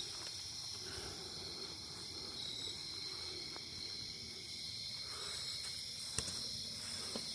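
Steady insect chorus, a continuous high-pitched trill, with a single sharp click about six seconds in.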